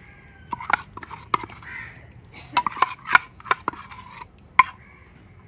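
A spoon knocking and scraping against a bowl in a string of irregular clinks, busiest in the middle and with one more near the end, as ground chilli paste is scraped into dosa batter.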